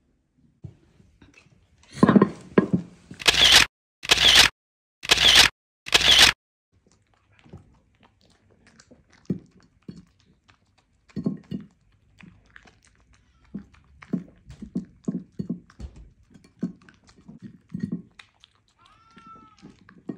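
Mini dachshund eating raw vegetables off a plate: a burst of loud crunching about two seconds in, four loud crunches about a second apart, then quieter scattered nibbling and chewing.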